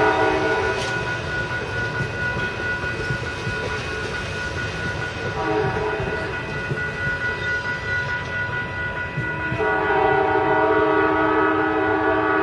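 Air horn of a passenger train's diesel locomotive sounding a chord over the low rumble of the passing train. One blast cuts off just after the start, a short blast comes about five seconds in, and a long blast starts near ten seconds in and is still sounding at the end, the pattern of a grade-crossing signal.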